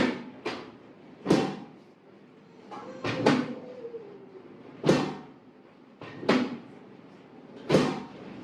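A series of about seven sharp thumps, one every second or so, from a chiropractor's manual thrusts and strikes on a patient lying face down on the treatment table.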